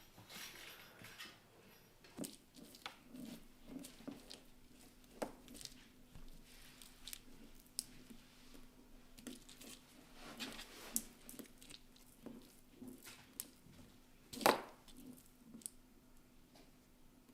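Kittens eating from a dish: a run of small chewing and clicking sounds, with one louder knock late on.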